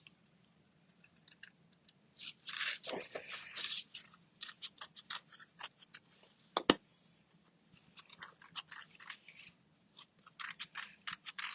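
Paper being handled and cut with scissors: crisp crinkling and snipping in short bursts, with one sharp click about two-thirds of the way through.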